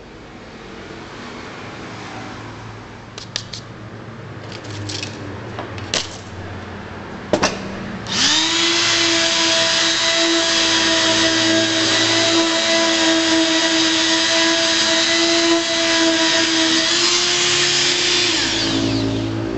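Black+Decker 200 W electric sheet sander switched on about eight seconds in, its motor spinning up to a steady whine and running for about ten seconds while held on the edge of a plywood box, then winding down near the end. Before it starts, a few handling clicks and knocks.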